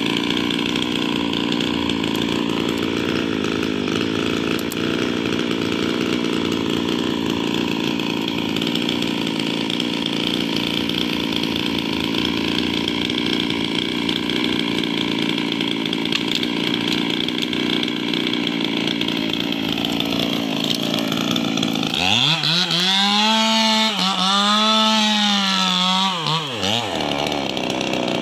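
Two-stroke chainsaw running steadily while felling sengon trees. About 22 seconds in, it revs up to a high, full-throttle pitch that dips and recovers twice, then falls away near the end.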